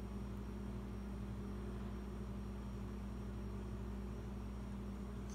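Steady low hum with a faint hiss over it, unchanging throughout: background room tone.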